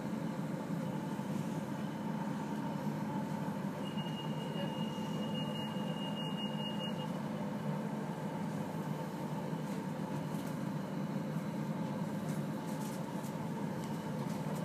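Steady hum inside a passenger train standing at a station platform, with a thin, steady high tone for about three seconds in the middle.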